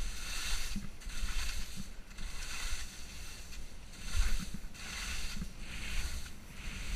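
Skis carving on packed, groomed snow: a scraping hiss that swells with each turn, about five times, over wind rumbling on the action camera's microphone.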